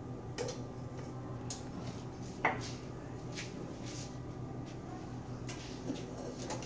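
Light kitchen clatter: a few scattered knocks and clicks of a spatula and steel mixing bowl being handled, the loudest about two and a half seconds in, over a steady low hum.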